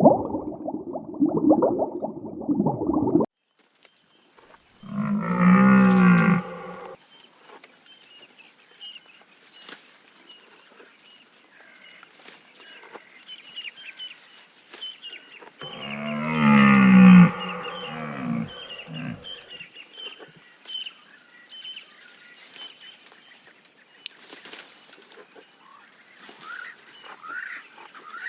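A cow mooing twice, about five seconds in and again about sixteen seconds in, each a long low call. Before the moos, a muffled noise cuts off abruptly about three seconds in.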